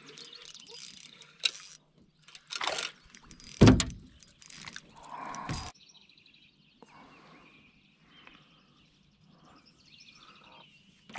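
Small bass being landed in an aluminium boat: splashing and knocks, with one heavy thump against the hull about three and a half seconds in. A bird then chirps and trills in quick repeated notes for several seconds.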